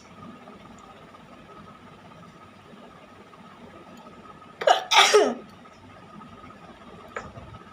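A woman sneezes once, about four and a half seconds in: a short sharp burst followed at once by a longer, falling one. The sneeze is brought on by tickling the inside of her nose with a thin stick. A faint steady hum lies underneath.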